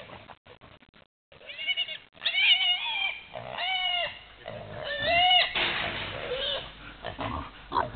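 Piglets squealing: four drawn-out, high, wavering squeals starting a second or so in, the distress cries of piglets being caught and handled for tagging. A rustling noise follows the last squeal.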